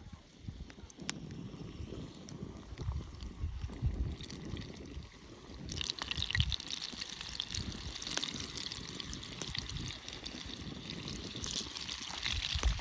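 Water trickling. About halfway through it becomes a brighter, splashier hiss, over a low rumble of wind on the microphone.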